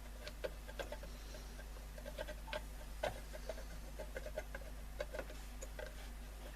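Faint, irregular light clicks and taps, a few a second, over a steady low mains hum.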